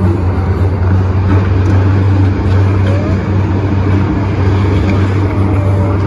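MTR M-train electric multiple unit pulling out of the station into the tunnel, heard from inside the carriage: a loud, steady low rumble of wheels and traction.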